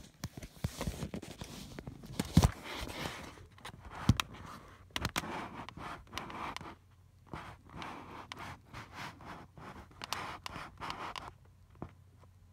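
Handling noise from the recording device being picked up and positioned: fingers rubbing and scratching over the microphone, with scattered knocks, the sharpest about two and a half seconds in and again at about four seconds. It settles down near the end.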